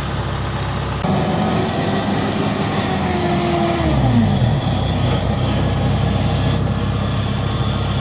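Kubota DC70 combine harvester's diesel engine running steadily. About a second in the sound turns suddenly louder and brighter, and a couple of seconds later a whine falls in pitch and fades out.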